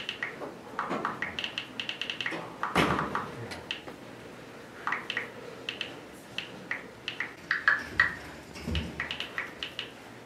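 Smartphone keyboard clicks as a text message is typed: quick, irregular runs of short ticks, with a louder rustle about three seconds in.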